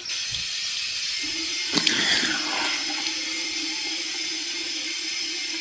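Water running steadily from a tap, switched on suddenly. A steady low hum joins about a second in, and there is a brief louder burst about two seconds in.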